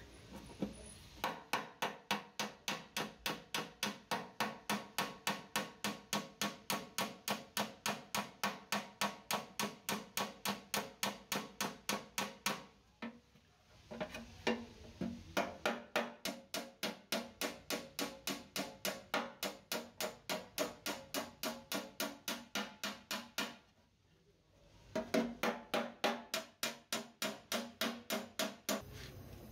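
A hammer striking metal in a steady, rapid rhythm of about three to four blows a second, each blow ringing. There are three runs, with short pauses about 13 and 24 seconds in.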